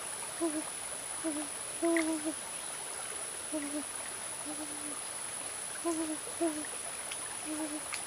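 An animal calling with short, low hooting notes, about a dozen of them at irregular intervals, some single, some in quick pairs and a couple held longer, over a steady high whine.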